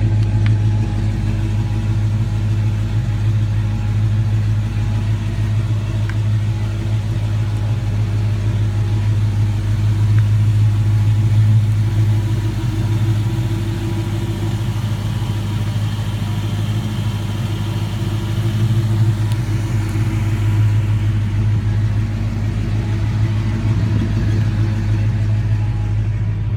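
Steady low rumble of a running car, with little change.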